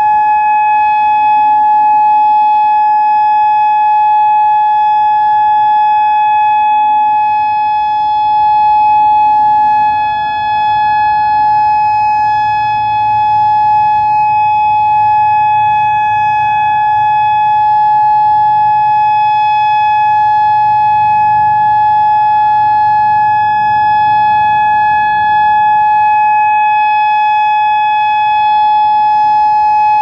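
Federal Signal DSA 2X4 electronic siren sounding a loud, steady tone from its horn speakers in a siren test, holding one pitch throughout.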